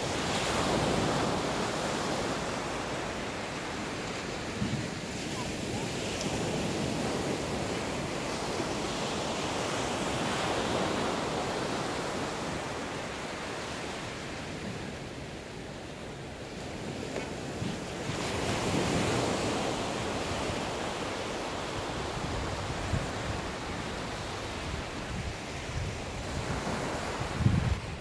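Small sea waves breaking and washing up a sandy beach, the surf swelling and easing every several seconds, with wind on the microphone. A brief low thump near the end.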